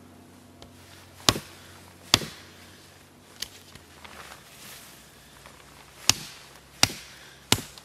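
Small axe chopping into wood: two sharp blows about a second apart, a lighter knock, then after a pause three more blows in quick succession.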